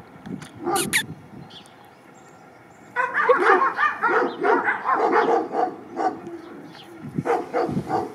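Dog barking and yipping in a quick run of short calls, starting about three seconds in and lasting about three seconds, with a few more barks near the end. Two sharp clicks come about a second in.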